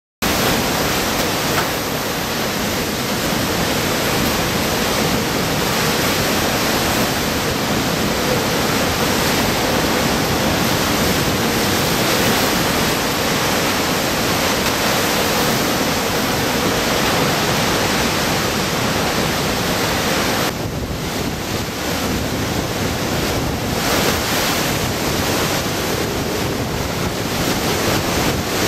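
Typhoon-force wind and driving rain: a loud, steady rush of noise that eases a little for a few seconds about two-thirds of the way in.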